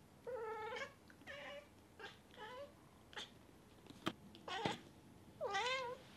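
Bengal cat chirping and meowing in a run of about seven short calls, with a longer meow near the start and another with a wavering pitch near the end. A sharp click about four seconds in.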